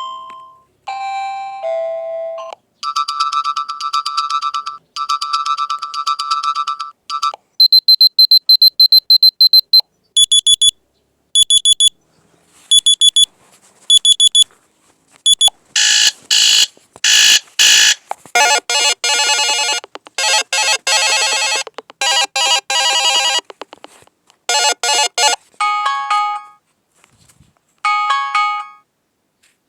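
Alarm clock ringtones played one after another through a Dexp K38 Android phone's speaker: a few seconds of each electronic tone, from chimes and fast beeping to evenly spaced high beeps and melodic jingles. The loudest is a run of very fast, high beeps about a third of the way in, and a short repeating chime figure plays near the end.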